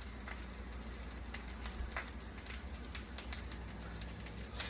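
Rice frying in oil in a pan, a steady sizzle with scattered crackles and a few light clicks.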